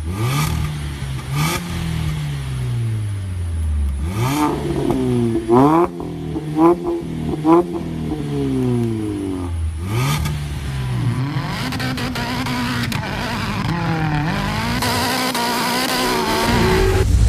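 Car engine revving again and again, its pitch rising and falling with each rev, with a run of quick, sharp blips about five to eight seconds in. Toward the end the engine holds steadier at a higher pitch under a growing hiss.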